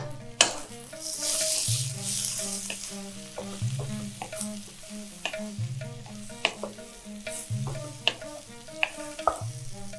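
Wooden spatula stirring sliced bitter gourd and onions in a wok of hot oil. The food sizzles, loudest for a second or two early in the stir, and the spatula scrapes and clicks against the pan.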